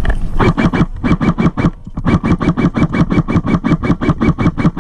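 Airsoft electric gun (AEG) firing full auto in bursts, about seven shots a second, heard close up from on the gun: two short bursts, then a long burst that runs on.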